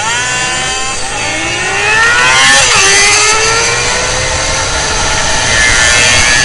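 Several motorcycle engines revving hard as the bikes accelerate, their pitch climbing repeatedly through the gears, with the lines of more than one engine crossing about two and a half seconds in. Wind rushes over the microphone throughout.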